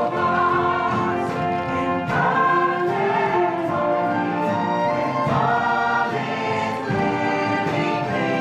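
Choir singing held chords with orchestral accompaniment.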